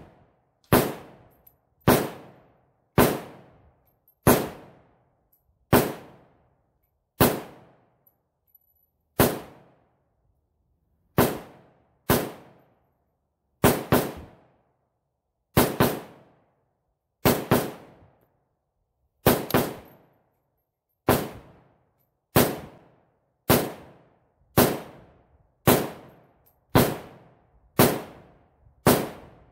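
AK-pattern rifle with a muzzle brake fired semi-automatically, about two dozen sharp shots at roughly one a second, each with a short ringing tail.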